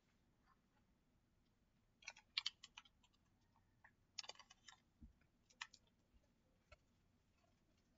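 Near silence broken by a few faint clicks and taps: a small cluster about two seconds in, another about four seconds in, and a single click after five and a half seconds.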